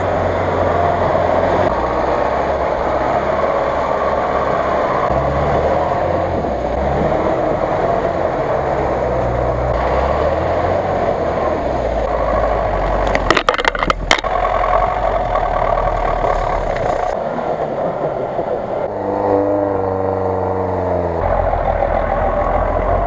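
Engines of several off-road 4x4s, including a GAZ-66 truck and a lifted Jeep Cherokee, running under load and revving as they crawl through snow and mud, one after another. There are a few sharp knocks about thirteen seconds in, and a clear revving note around nineteen seconds.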